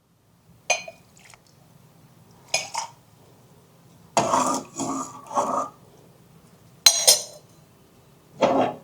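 Serving a hot drink from a pan: a handful of separate short clinks of kitchen utensils against a pan and cup, with brief splashes of liquid being poured, including a cluster of three near the middle.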